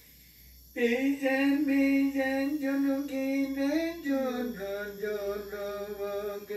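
A voice chanting in long held notes, starting about a second in and stepping down to a lower note about four seconds in.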